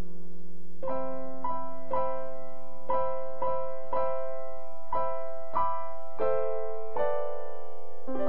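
Background music on an electric piano: a held chord, then a simple melody of evenly struck notes about two a second.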